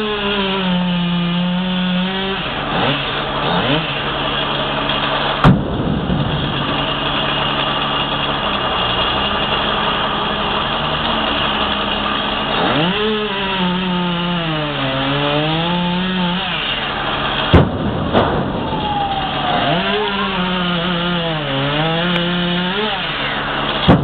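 Chainsaw cutting through a soft maple limb in three bouts, near the start, midway and near the end, its pitch sagging under load and climbing back, over the steady drone of the bucket truck's engine. A few sharp knocks stand out, the loudest about five seconds in and two more just past the middle.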